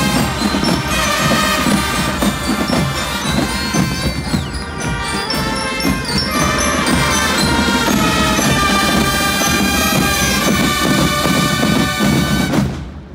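Marching band of brass horns and drums playing a piece together, stopping abruptly near the end.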